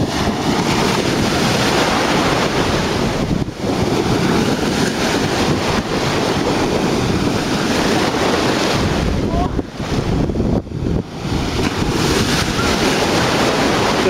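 Sea surf washing ashore, with wind gusting across the microphone. The rush drops away briefly a few times.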